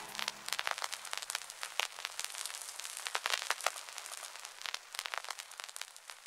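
Faint, irregular crackling clicks, thinning out toward the end.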